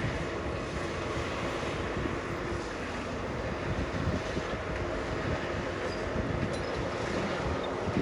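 Diesel engine of heavy earthmoving equipment running steadily under work, a continuous rumble with a faint steady drone.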